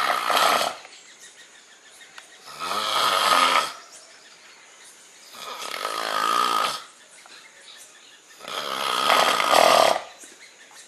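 A man snoring loudly: four long snores, each about a second long, coming roughly every three seconds with quiet breathing gaps between.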